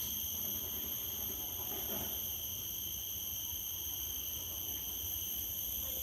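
Insects droning in a steady high-pitched chorus in a tropical mangrove forest, with a low rumble underneath.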